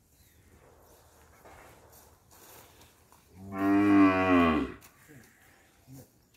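Khillar cattle mooing once: a single loud call of about a second and a half that drops in pitch at the end.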